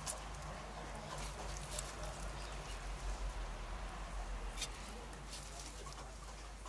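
Large chunks of cabbage being packed by hand into an earthenware pot: scattered soft crackles and taps, over a low steady hum.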